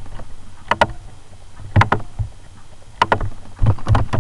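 A few separate sharp clicks from a computer keyboard and mouse, about a second apart, over a low steady hum.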